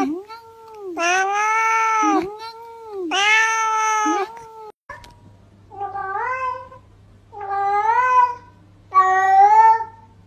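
Domestic cats meowing: first a series of long, drawn-out meows, about a second each. After a break, a different cat gives three shorter meows that rise in pitch, over a faint low hum.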